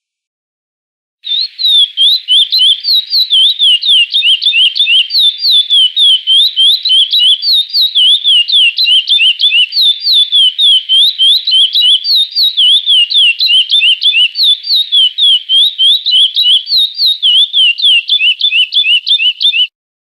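Curió (chestnut-bellied seed finch) singing the 'praia clássico' song: a long, unbroken run of quick, clear whistled notes sweeping up and down. It starts about a second in and stops abruptly near the end.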